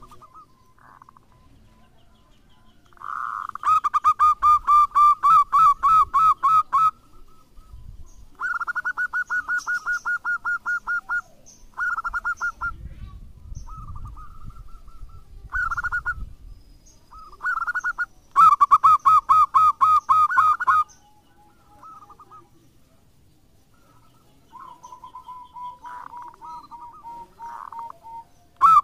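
A zebra dove (local perkutut) singing: several phrases of rapid, pulsed cooing notes, each lasting a second or three with short pauses between them. The phrases near the end are softer. It is singing freely, the kind of song used as a lure to get other perkutut singing.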